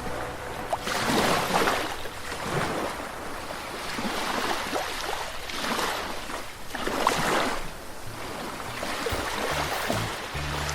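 Caribbean Sea surf: small waves breaking and washing onto the shore, swelling and fading every second or two.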